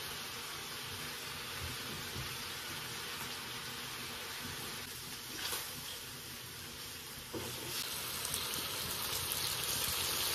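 Cured pig head and shepherd's purse sizzling in a wok over a wood fire: a steady hiss that gets louder about seven seconds in.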